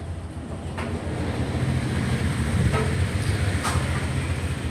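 Steady low vehicle noise that grows louder over the first two seconds, with a few brief clicks.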